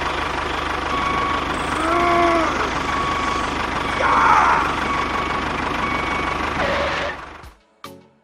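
Small engine of a miniature tractor running steadily, then cutting out about seven and a half seconds in.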